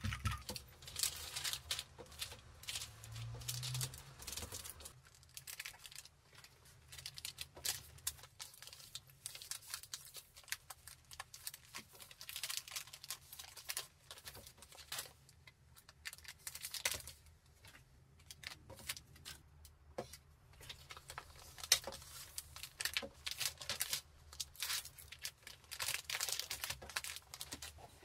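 Sticky lint roller crackling as it is rolled over a fabric pouch. Irregular crackling, rustling and tearing of adhesive sheets and wrapping as things are handled.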